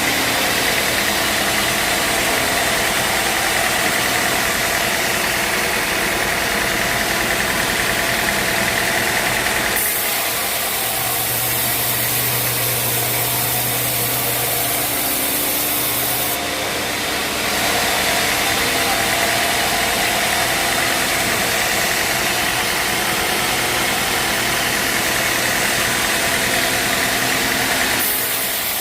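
Sawmill machinery running steadily with an engine-like drone. The sound changes about ten seconds in, when a high hiss drops away and a low hum comes up, and changes back around seventeen seconds in.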